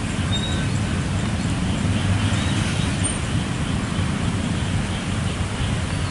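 Steady low rumble of a crowd of motorcycles and scooters idling together, with a general haze of traffic noise.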